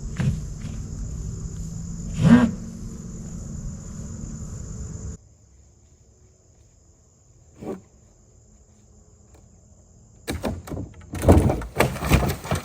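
Wooden deer-blind framing toppling and crashing to the ground: a cluster of heavy crashes and knocks over about two seconds near the end, after two single knocks earlier. Insects buzz steadily throughout.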